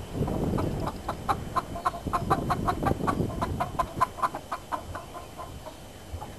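Chickens clucking: a quick, even run of short clucks, about four a second, which tails off about five seconds in.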